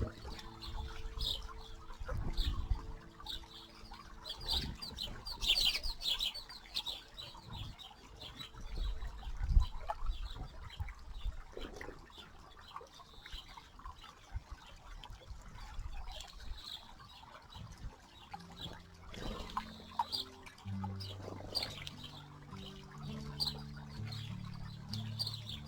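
Small birds chirping and splashing as they bathe in a shallow stream, with wing flutters in the water. A dense run of chirps comes about five seconds in.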